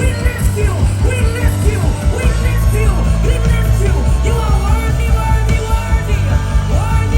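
Live worship music: a band playing with a steady beat under singing voices.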